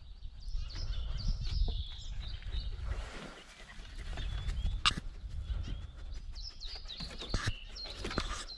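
Small birds chirping and twittering, over a fluctuating low rumble, with a couple of sharp clicks about five and seven and a half seconds in.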